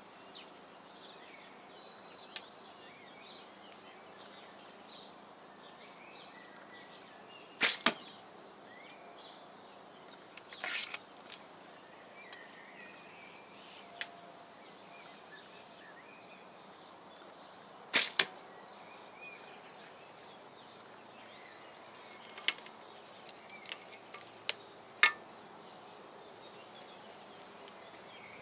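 Shots from a Bear Grizzly 58-inch one-piece recurve bow: sharp snaps as the Dacron Flemish string drives arrows off the bow and they strike the target, several shots spread a few seconds apart, the loudest near the end, with softer clicks between.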